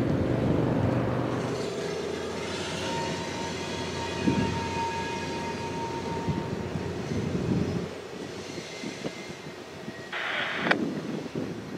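Diesel switching locomotive running as it moves away, its low engine rumble dropping off about eight seconds in. A thin, steady high squeal sounds for a few seconds in the middle, and a short sharp sound comes near the end.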